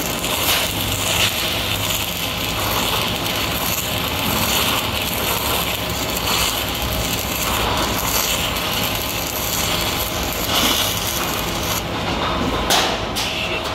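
Stick (shielded metal arc) welding overhead on galvanized steel: a 5/32 in. electrode's arc crackles steadily as it burns through the zinc coating. The arc breaks off about twelve seconds in.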